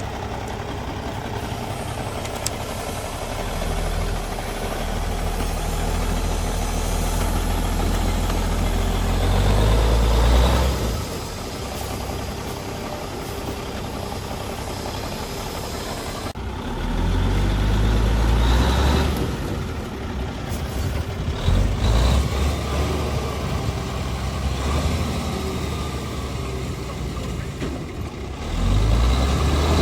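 Heavy truck's diesel engine running at a low rumble, swelling louder several times as it is revved or put under load.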